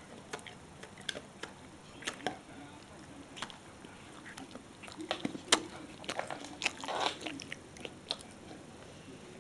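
Shar pei dog chewing a crunchy snack: irregular crisp crunches and clicks, coming thickest in the second half.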